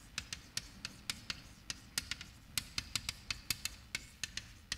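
Chalk clicking and tapping against a blackboard as words are written: a quick, irregular run of sharp clicks.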